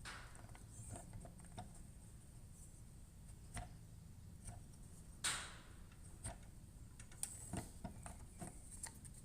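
Faint scattered clicks and light knocks of a metal bar being worked onto a 3D-printed box wrench, with one sharper tick about five seconds in and a few more taps near the end.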